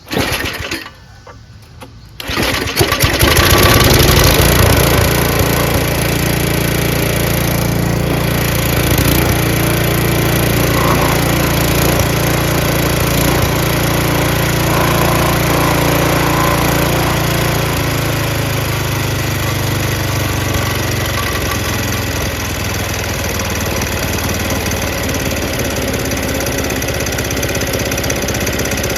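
Tecumseh 5.5 hp Snow King single-cylinder snowblower engine being started: a brief burst, a moment's pause, then it catches about two seconds in and runs steadily, dropping slightly in speed near the end. It is running on a carburetor whose pilot and main jets have just been cleaned.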